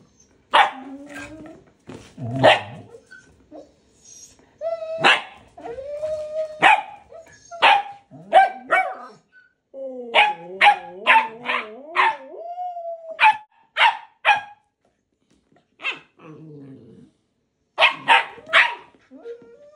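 Siberian huskies vocalising: short sharp barks and yips again and again, with drawn-out whining, grumbling husky 'talk' between them, most of it about ten seconds in. It is a puppy pestering an older dog to play.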